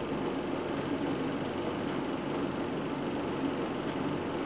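Steady, even rushing noise of outdoor street ambience, with no strikes or changes.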